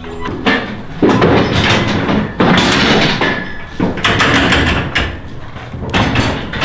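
Steel cattle-handling gates and head catch clanking and banging as they are worked: several sharp metal bangs at irregular intervals.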